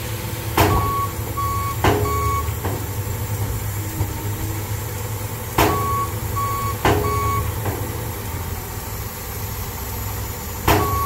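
Dump truck sounds: a truck engine idling steadily under sharp metal bangs of the tailgate slamming, in groups about every five seconds. Each group comes with three short high beeps, like a reversing alarm.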